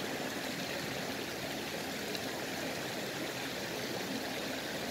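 Steady rushing of a small river's flowing water.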